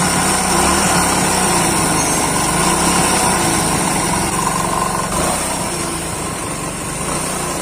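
Hero Splendor motorcycle's single-cylinder four-stroke engine running with a clattering rattle from the crank on the magnet side: the sign of play in the crankshaft bearings, which the mechanic cures by fitting shims under the bearings. The sound eases slightly about five seconds in.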